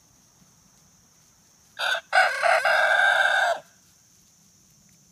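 A rooster crowing once: a short opening note, a brief break, then one long drawn-out call of about a second and a half.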